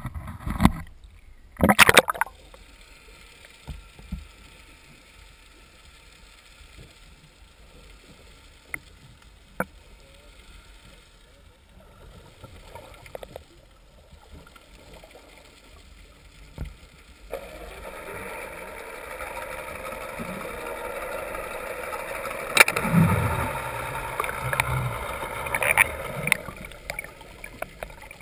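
An action camera being handled and knocked against something, then dunked below the surface, where sound comes through muffled. About two-thirds of the way in, a louder steady hiss of moving water sets in, with a few dull thumps.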